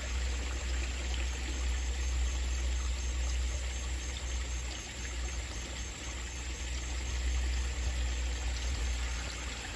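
Water running and trickling steadily into a koi pond, with a low rumble underneath.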